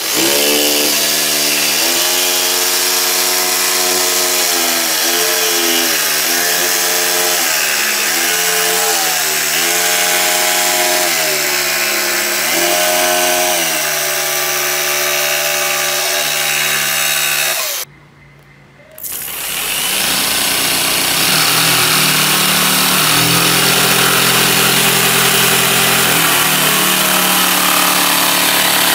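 Bosch GST 80 PBE corded jigsaw cutting plywood. Its motor tone sags in pitch and recovers over and over as the blade loads in the cut. It stops for about a second roughly two-thirds of the way through, then runs again.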